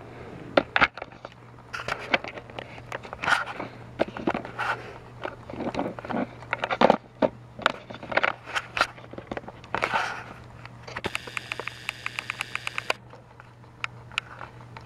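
Irregular plastic clicks, knocks and scrapes from toy trains and track being handled, over a low steady hum. About eleven seconds in, a buzzing rattle of rapid, evenly spaced clicks lasts about two seconds.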